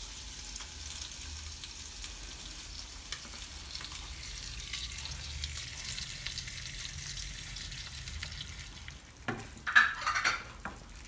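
Beaten eggs sizzling in a buttered frying pan with a steady frying hiss. About nine seconds in, a wooden spoon stirs and scrapes through them in the pan, the loudest sounds.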